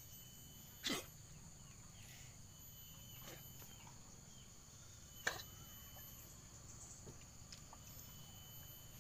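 Faint, steady insect chirring in the background. Two brief sharp sounds stand out, about a second in and about five seconds in.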